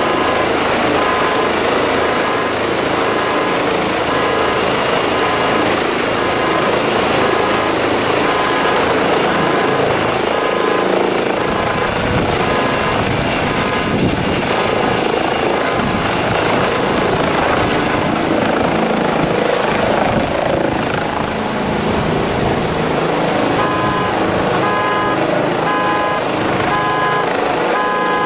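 Fenestron-tailed twin-turbine air-rescue helicopter running at power, lifting off and climbing away: steady, loud rotor and engine noise, with a high turbine whine that rises about ten seconds in. A repeated beeping comes in near the end.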